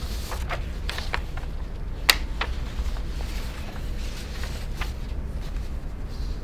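Sheets of paper crackling and rustling as they are handled and leafed through, with a sharp snap about two seconds in, over a steady low room hum.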